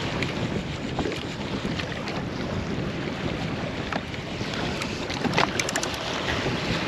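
Wind buffeting the microphone over choppy sea slapping against a drifting jet ski's hull, a steady rush with scattered small splashes. A quick run of sharp knocks comes about five and a half seconds in.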